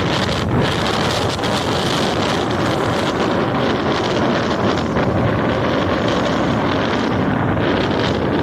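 Waves of a rough sea breaking, with wind blowing over the microphone: a steady, dense rush of noise.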